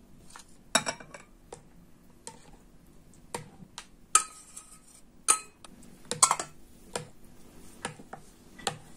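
A spoon stirring mashed banana and melted white chocolate in a metal bowl, clinking against the bowl in irregular taps, a few of them sharper and briefly ringing a little past halfway.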